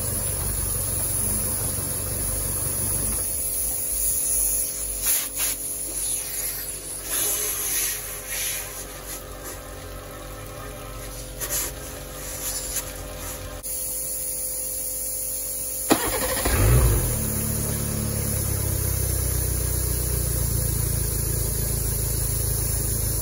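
Johnson 70 hp four-stroke outboard engine running, then stopping a few seconds in. An air-gun then gives irregular hissing blasts of compressed air to clear the blocked cooling-water tell-tale. About sixteen seconds in, the starter clicks and the engine cranks, catches and settles to a steady idle.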